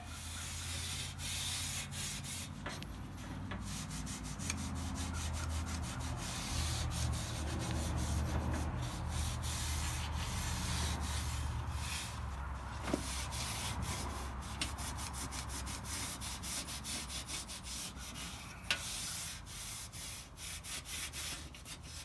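Scotch-Brite pad scrubbing an old aluminum car grille in rapid back-and-forth strokes, working off oxidation softened by oven cleaner. Two sharp knocks sound about 13 and 19 seconds in.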